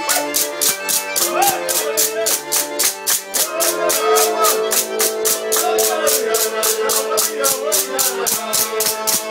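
Circassian button accordion (pshyne) playing a lively dance tune with held notes, driven by fast, even clacks of a pkhachich wooden clapper and handclaps, with voices calling out over the music.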